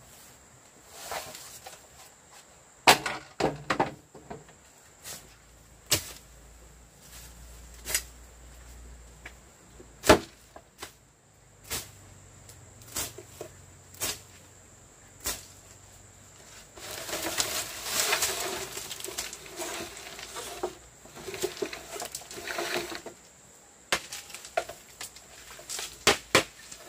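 Dry vegetation and dead branches pulled and broken by hand: scattered sharp cracks and woody knocks of snapping twigs and sticks, with a longer stretch of leafy rustling about two-thirds of the way through.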